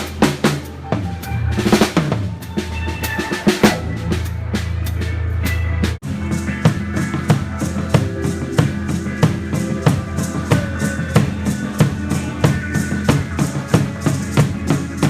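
Drum kit played live with a band: crashing strikes over held low bass notes, then, after a sudden drop about six seconds in, a fast, steady beat.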